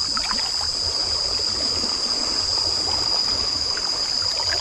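Stream water running and trickling with a few light splashes, under a steady high-pitched drone of insects.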